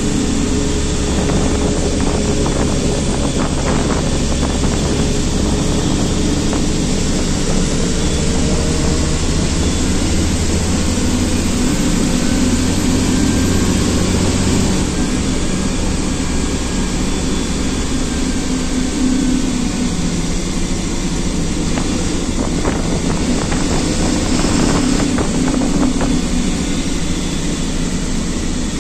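Steady engine drone and road noise heard from inside the cab of a large vehicle driving at speed. The low engine note changes about halfway through.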